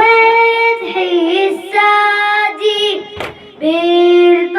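A high solo voice chanting a Shia latmiya lament in Iraqi Arabic, drawing out long held, wavering notes across two phrases. There is one sharp thump in the pause about three seconds in.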